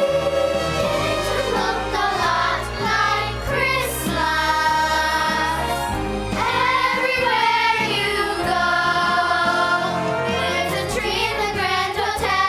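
Choir singing a Christmas song with instrumental accompaniment over a sustained bass line.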